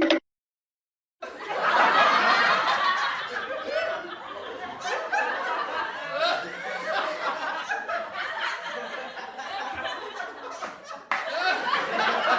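A group of people laughing and chattering together, many voices overlapping. It starts about a second in after a brief silence and cuts off suddenly near the end into another burst of group laughter.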